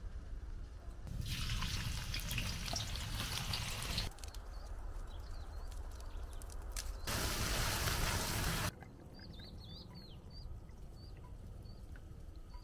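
Liquid pouring and trickling in short separate stretches, the loudest a little past halfway. A few short bird chirps come in the quieter moments between.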